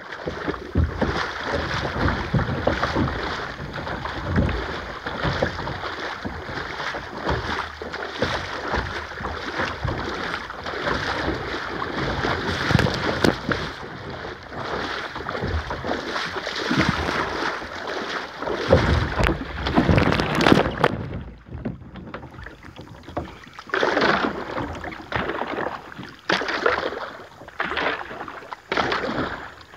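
River water rushing steadily around a kayak drifting through a riffle. About two-thirds of the way through the rush drops away, and separate splashes follow every second or two, in the pattern of paddle strokes on calm water.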